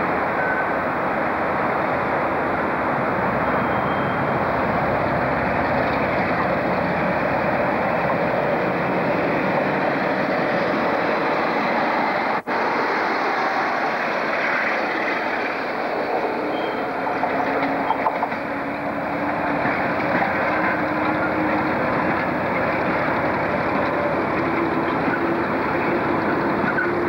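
British Rail Class 47 diesel locomotive running along the platform with its engine working and its wheels rumbling on the track. The sound is steady, with a brief dropout about halfway through.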